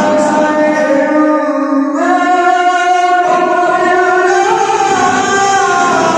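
A male reciter's voice in melodic chanted Quran recitation, holding long drawn-out notes, stepping up in pitch about two seconds in.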